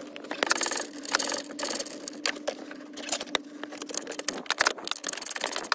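Socket ratchet clicking in quick runs as an 8 mm screw is backed out.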